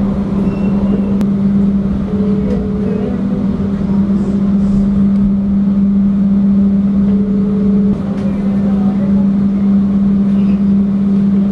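Steady running noise inside a moving passenger train carriage: a constant low hum over an even rumble.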